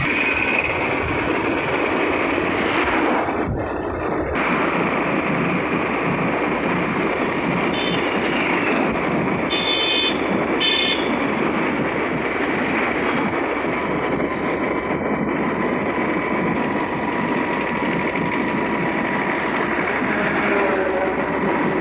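Riding a motorcycle on a highway: steady rushing wind and road noise on the microphone, with two short horn beeps about ten seconds in.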